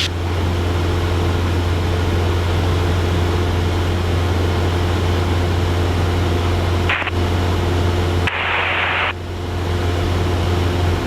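Cessna 172 Skyhawk's piston engine and propeller droning steadily in the cabin. There is a short burst of hiss about seven seconds in, and a longer hiss of about a second just after eight seconds.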